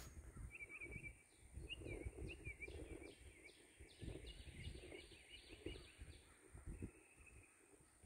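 Faint songbirds calling: a bird warbling a run of quick notes while short downward-sliding notes repeat above it, coming faster before they stop about six seconds in, over an uneven low rumble.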